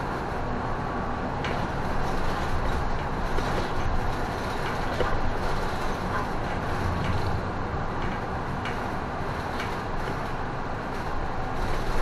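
Cabin noise of an Isuzu city bus on the move: a steady mix of engine and road noise, with a few faint rattling clicks.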